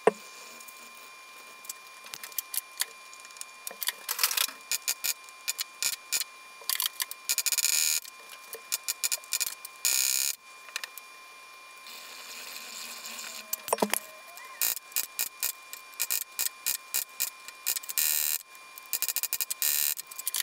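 Hand-tool work on metal: quick irregular metallic clicks and scrapes with a few longer rasping strokes, as aluminum threaded stock is worked into tapped holes in an aluminum plate and trimmed flush.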